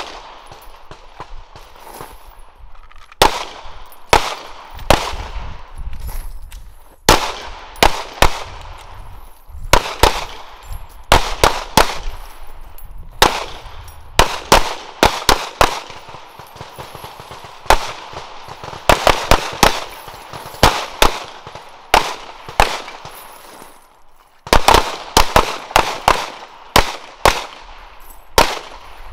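Handgun shots from several shooters firing at once, irregular single shots and quick strings that sometimes overlap. There is a brief lull about three-quarters of the way through, then a dense run of shots.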